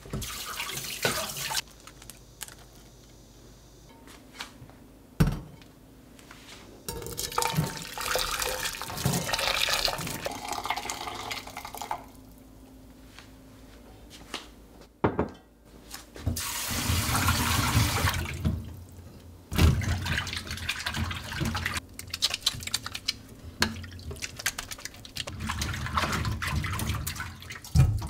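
Kitchen faucet running in several spells into a stainless steel sink, with splashing and sloshing as items are rinsed and cherry tomatoes are swished by hand in a water-filled basin. A few sharp knocks from things being handled at the sink.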